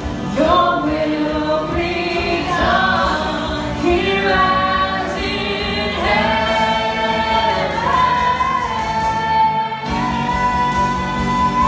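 Live worship music: several voices singing a slow melody over guitar. The notes move every second or so at first, then settle into long held notes from about six seconds in.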